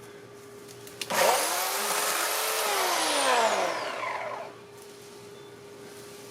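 Two-stroke chainsaw revved once: it starts suddenly about a second in, its engine pitch climbs and then sinks back over about three seconds before the sound drops away.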